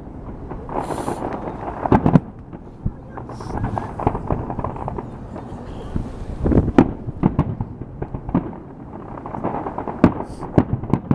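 Fireworks and firecrackers going off in an irregular series of sharp bangs and crackles over a constant rumble of more distant bursts. Louder bangs come about two seconds in, around six to seven seconds, and about ten seconds in.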